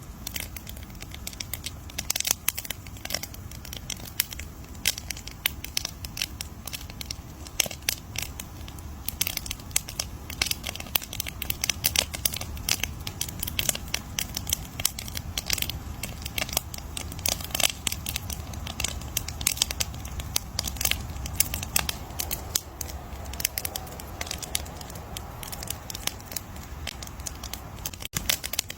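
Campfire crackling and popping: dense, irregular sharp snaps of burning wood over a low steady rumble of the flames.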